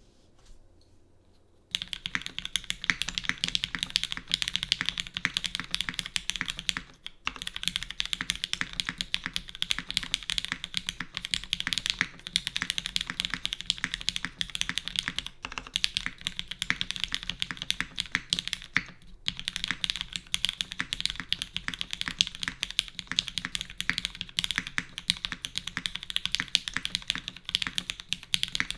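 Fast continuous typing on a mechanical keyboard with lubed, filmed Cherry MX Black linear switches and GMK keycaps on a full aluminium plate with no foam, giving a dense stream of key clacks. It starts about two seconds in and breaks briefly three times.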